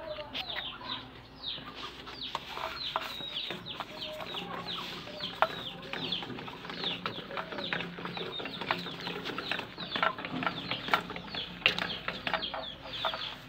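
Many birds chirping together: a dense, continuous run of short, high chirps, each quickly falling in pitch.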